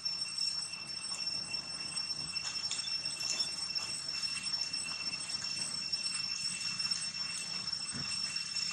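Insects droning in a steady, high-pitched chorus that does not change, with faint rustles of dry leaves.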